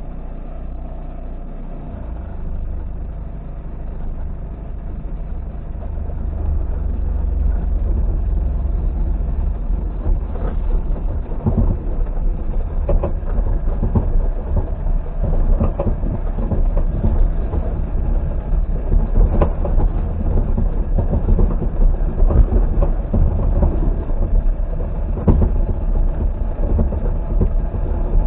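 A car driving slowly over a rough, rutted field track, heard from inside the cabin: a low rumble that grows louder over the first several seconds, with irregular knocks and rattles as the body jolts over bumps.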